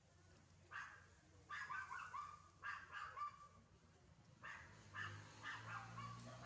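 Faint, short, high-pitched animal calls in several quick runs, yelping or squeaking, about a dozen in all.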